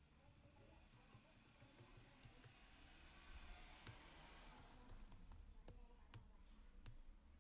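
Faint, irregular clicking of computer keyboard keys being typed, over a soft hiss that swells for a couple of seconds about halfway through.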